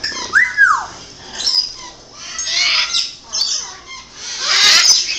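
Pet parrots calling: a clear whistle that rises and then falls about half a second in, followed by several harsh, raspy squawks and chatter, the loudest near the end.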